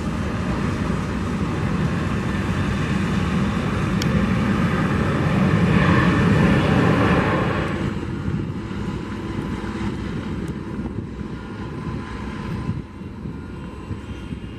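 Jet engines of an Azul Embraer E-Jet on the runway, swelling to their loudest about six seconds in. About eight seconds in this breaks off abruptly, and a fainter, steady jet sound from a Boeing 747-400 freighter on final approach follows.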